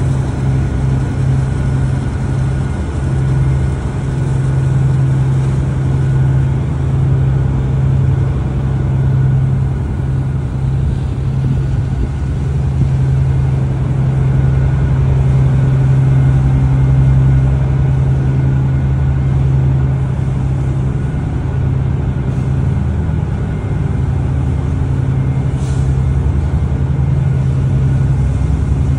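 A ferry's engines running with a steady, unbroken low drone.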